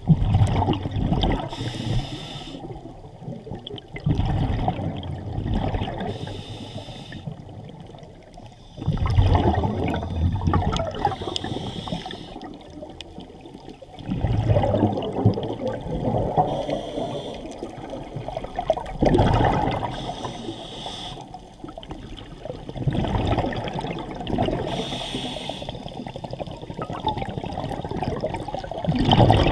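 Scuba diver breathing through a regulator, recorded underwater. A loud bubbling rush of exhaled bubbles comes about every four to five seconds and fades out, and between breaths each inhalation gives a short high hiss.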